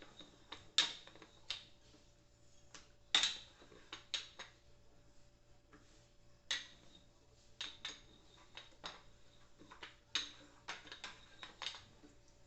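Kitchen utensils and dishes being handled on a counter: irregular light clicks and knocks, about a dozen, some with a short ring.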